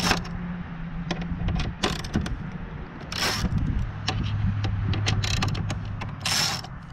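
Small clicks and scrapes of a hand screwdriver backing out the bolts that hold a motorcycle's plastic tail panels, with two short scraping rustles about three and six seconds in. A low steady hum sits underneath.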